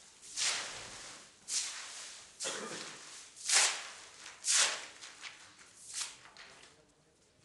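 A broom swept in quick strokes across a hard floor strewn with debris and paper: about six swishes, roughly one a second, the loudest in the middle.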